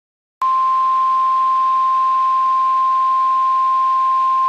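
Emergency Alert System attention tone: a single steady high-pitched tone that starts abruptly about half a second in, signalling that a severe thunderstorm warning is about to be read.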